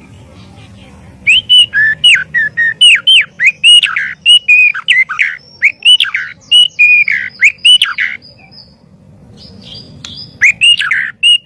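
White-rumped shama (murai batu) singing: a rapid run of loud, clear whistled notes, many sliding downward in pitch. The song starts about a second in, pauses for two seconds near the end, then resumes.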